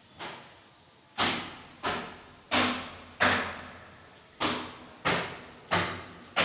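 Footsteps coming down stone stairs: about eight sharp steps at an even pace of roughly one and a half a second, each ringing briefly in the stairwell, with one short break midway.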